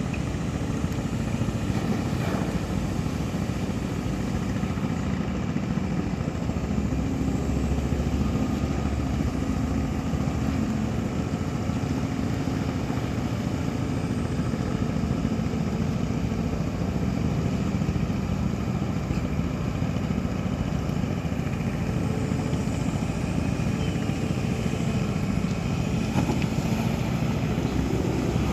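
Large engine running steadily, a continuous low drone.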